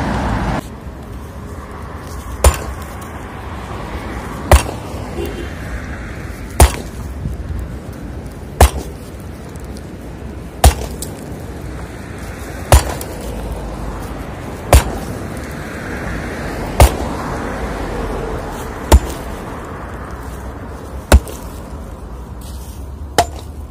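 Sledgehammer blows on a rebar-reinforced concrete slab: about eleven sharp strikes, evenly spaced roughly two seconds apart, to break the concrete away from the steel rebar.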